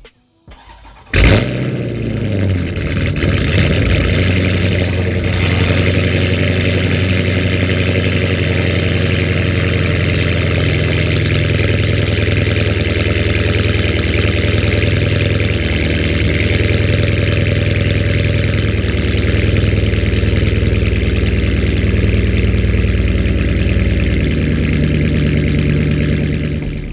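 Dodge Charger Scat Pack's 6.4-litre HEMI V8, fully straight-piped with cats, resonators and mid mufflers deleted, starting about a second in with a loud flare and then idling steadily and loudly. The sound cuts off suddenly at the end.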